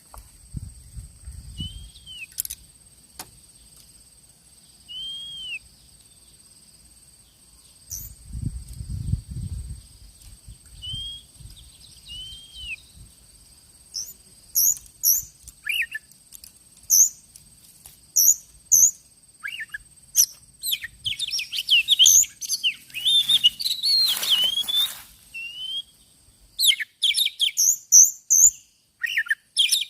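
Oriental magpie-robin (kacer) chirping and calling: a few short curved notes at first, then high chirps repeated every second or two, growing busier with a dense flurry about two-thirds through and quick chirps near the end. A faint steady high drone runs underneath.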